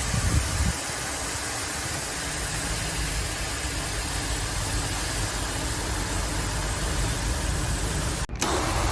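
A forceful jet of water spraying into motorcycle shampoo to whip it into foam: a steady, even hiss. It cuts out for an instant about eight seconds in, then carries on.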